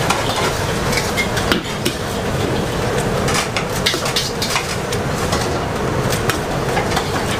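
A metal ladle clanking and scraping against a steel wok as noodles and bean sprouts are stir-fried over a gas flame, with frequent sharp clanks over steady sizzling and a faint steady hum.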